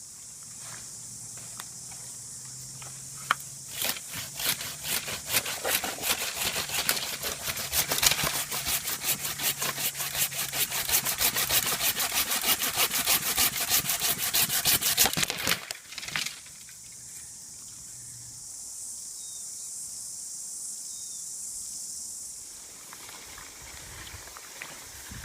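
A saw cutting through a green willow sapling in rapid, even back-and-forth strokes for about twelve seconds, stopping abruptly. A steady high insect hiss runs behind it.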